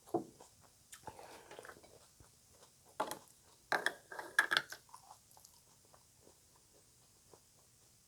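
Close-up eating sounds of green papaya salad: crunchy chewing and wet mouth noises, loudest in a cluster of bites a few seconds in, then fainter chewing clicks.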